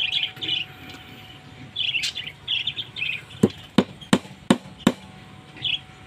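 Small birds chirping in short bursts, then, about three and a half seconds in, a hammer drives a nail into plywood with five quick, sharp strikes, about three a second.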